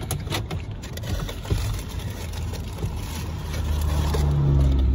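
Car cabin noise while driving slowly: engine and tyre rumble with a few light knocks near the start, building to a louder low steady drone about four seconds in.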